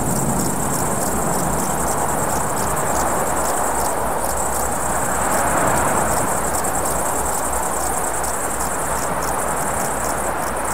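Field ambience of insects chirring: a steady, high, rapidly pulsing trill over a soft hiss.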